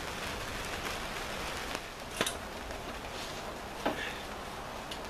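Two short, sharp metal clicks from tools and a bolt as an engine mount bolt goes in under the car, about two and four seconds in, over a steady hiss.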